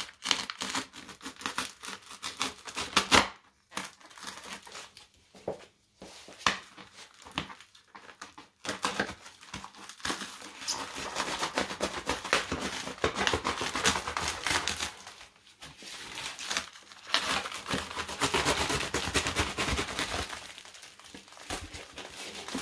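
A knife cutting through yellow plastic packing tape wrapped around a box, the tape crinkling and tearing with scraping clicks. The sounds come in stops and starts for the first half, then run on as a near-continuous crinkling in the second half.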